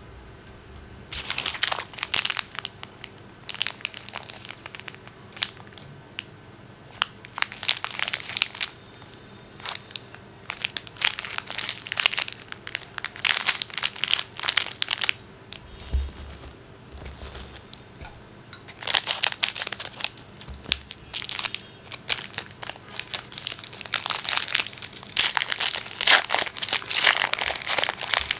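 Plastic wrappers of Perk chocolate bars crinkling and tearing as they are handled and opened, in repeated bursts of a second or two with short pauses between them.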